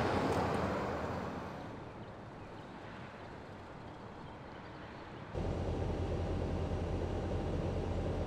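A pickup towing a boat on a trailer drives past, its road noise fading away over the first two seconds into quieter, distant traffic. About five seconds in, a steady low engine rumble starts abruptly.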